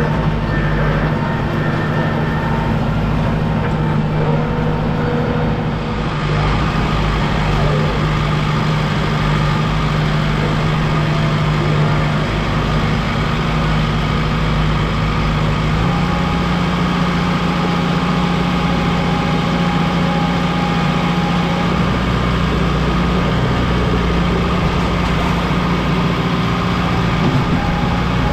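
Kubota M6060 tractor's diesel engine running steadily, its pitch stepping up a little about halfway through as the engine speeds up.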